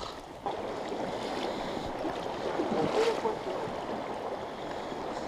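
Footsteps through dry brush, then, about half a second in, the steady rush of a shallow, fast-flowing river running over rocks.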